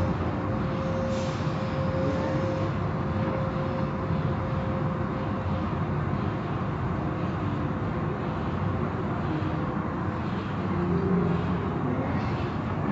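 Automatic car wash at work: spinning cloth brushes and wash strips scrubbing and slapping the car while water sprays, a steady dense rush. A faint steady hum runs through about the first half.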